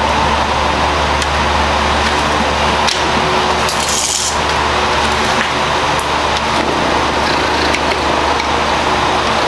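A steady mechanical drone with a constant low hum, from a machine running in the shop. There is a brief hiss about four seconds in and a few light clicks of parts being handled.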